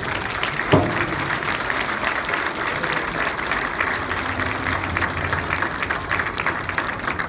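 An audience applauding steadily, with one sharp thud about a second in.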